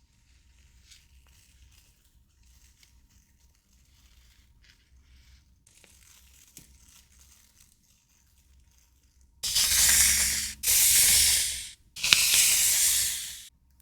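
Soft rustling of handled stationery, then three loud, long tearing strokes of paper or sticker sheets, each lasting a second or more, starting about nine and a half seconds in.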